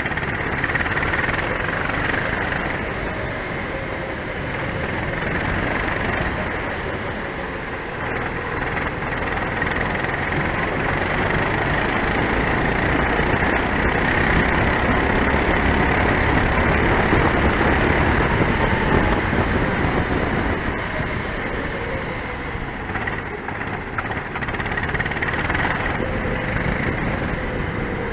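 Racing kart engine running hard, heard from on board, its pitch rising and falling with the throttle, over a dense rushing noise. It is loudest in the middle stretch.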